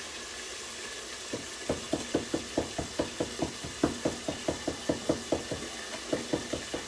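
Kitchen knife rapidly chopping on a cutting board, mincing garlic and herbs fine, starting a little over a second in at about four or five strokes a second. A faint steady sizzle of frying runs underneath.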